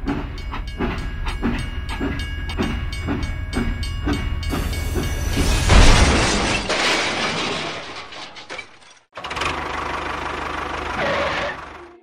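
Battery toy steam locomotive running on plastic track, its chugging clicking evenly about twice a second. After about four and a half seconds a loud rushing noise swells, peaks and fades, and after a brief dropout near nine seconds a second rushing stretch follows.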